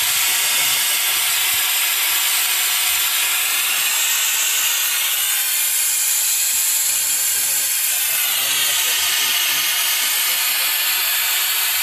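Steady loud hiss of air rushing through the carbon-cleaning hose and funnel into the engine during an engine carbon clean, with only slight changes in its sharpness.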